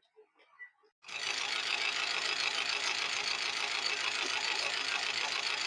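Honda Mobilio engine idling steadily, cutting in abruptly about a second in after a few faint taps. With a new timing chain fitted in place of the loose old one, the engine runs with its normal sound, the earlier strange noise much reduced.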